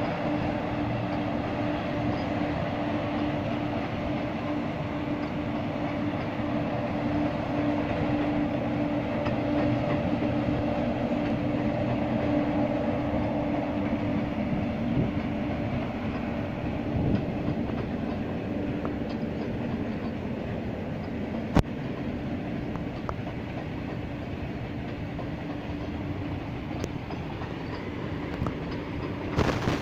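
Freight train of BTPN tank wagons rolling past: a steady rumble and clatter of wheels on the rails with a humming tone, easing somewhat in the second half, and one sharp click about two-thirds of the way through.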